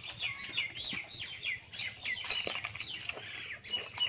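Small birds chirping: a dense run of short, high chirps, many of them falling in pitch, several a second.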